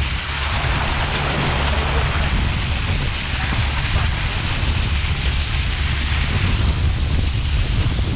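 A motorboat's engine running steadily at cruising speed, with water rushing past the hull and wind buffeting the microphone.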